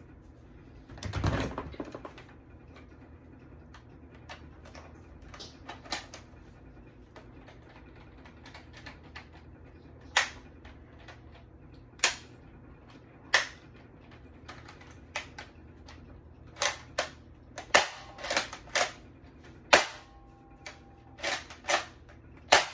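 Irregular sharp clicks and snaps, sparse at first and then more frequent and louder in the second half, with a dull thump about a second in.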